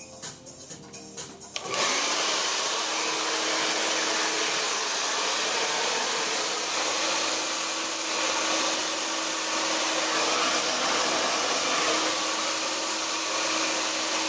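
Handheld blow dryer switched on about two seconds in and then running steadily: a loud rush of air with a steady motor whine, drying hair set on Velcro rollers. Background music plays before it starts.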